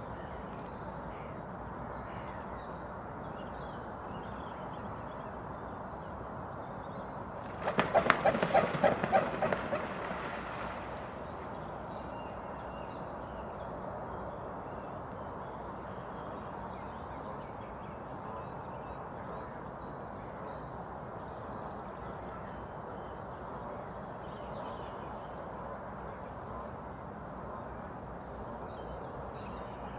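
A waterfowl gives a loud run of rapid, pulsed calls about eight seconds in, lasting some two seconds. Small birds chirp in quick repeated high notes throughout, over a steady outdoor hiss.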